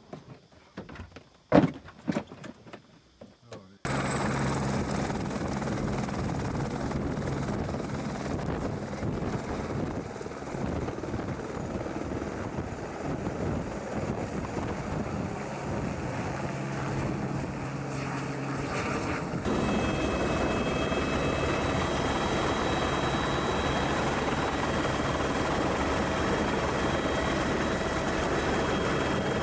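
A few soft knocks and rattles, then from about four seconds in a helicopter's turbine engine and rotor running steadily, with a high whine over the top. About twenty seconds in, the sound cuts to the helicopter heard from inside its cabin, slightly louder and steady.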